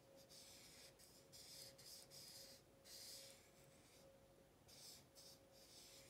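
Faint scratching of a pen tip across synthetic paper in a run of short strokes, with a faint steady hum underneath.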